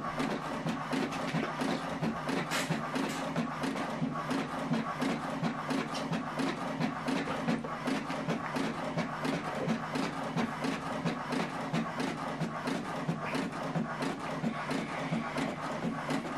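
HP inkjet all-in-one printer printing a page: a steady motor hum under a regular run of clicks as the print-head carriage shuttles and the paper feeds out.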